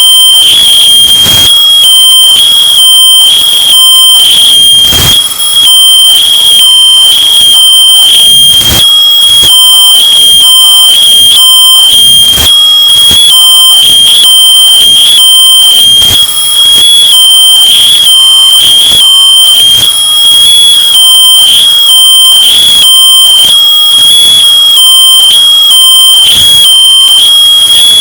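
Smoke detector alarm sounding a continuous high-pitched tone, bass-boosted and distorted into heavy clipping at full loudness.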